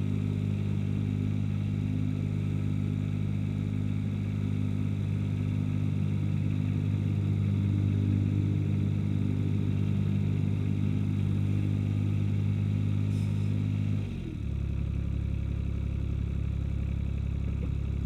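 Mower engine running steadily at a fairly high speed, then dropping suddenly to a lower, steady idle about fourteen seconds in, as if throttled back.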